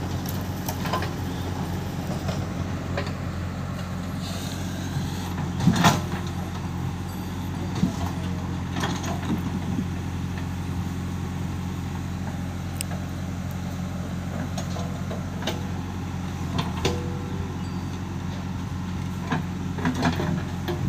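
Diesel engines of a JCB 3DX backhoe loader and a Mahindra 575 DI tractor running steadily as the loader bucket digs soil and dumps it into the tractor's tipper trailer, with a few thuds and metal clunks, the loudest about six seconds in.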